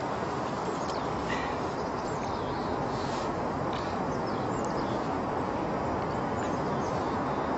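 Steady rushing outdoor noise with short, faint bird chirps scattered over it.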